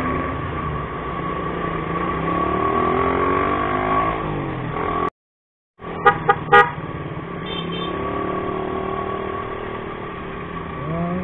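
Motorcycle engine running in city traffic with road noise, its pitch rising and falling as the revs change; the sound drops out for a moment about halfway. Just after, a vehicle horn gives three short, loud honks.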